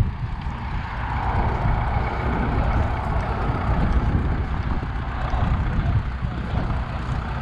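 Tractor engine running steadily, a continuous low rumble with some hiss over it.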